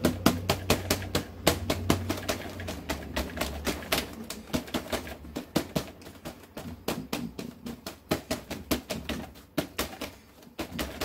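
Crumpled paper towel dabbed rapidly onto acrylic-painted watercolor paper on a tabletop, to stipple texture into the paint. It makes a quick, uneven run of soft taps, about five a second.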